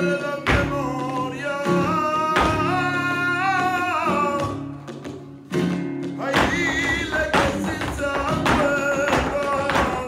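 Flamenco song in 12/8 time: a singer's voice over guitar, with a few sharp percussive hits. The song dips briefly a little past halfway, then comes back in.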